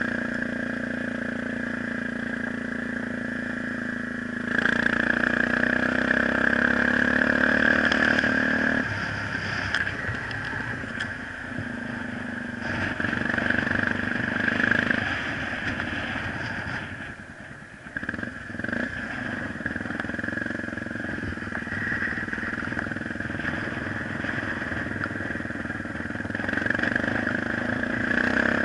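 Vehicle engine running as it drives along a gravel dirt track. It grows louder and higher about four and a half seconds in, drops back about nine seconds in, and eases off briefly near seventeen seconds.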